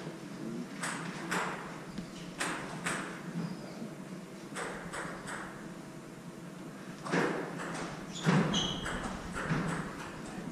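Table tennis ball clicking off paddles and the table, a series of sharp ticks, some in pairs about half a second apart. A short squeak comes about eight and a half seconds in.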